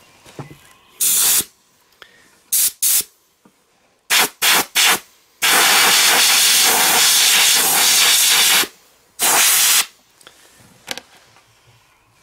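Compressed air hissing from a blow gun as it is blown through a dirty pleated car air filter to drive out trapped sand: several short blasts, then one long blast of about three seconds, then one more short blast.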